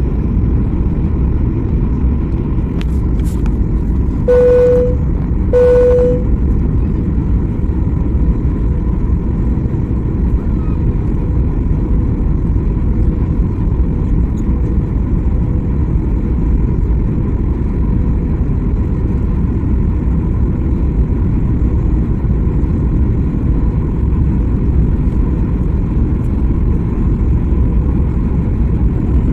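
Steady low roar of engines and airflow inside a Boeing 737 cabin on final approach. Two short beeps sound about four and five and a half seconds in, just after a couple of faint clicks.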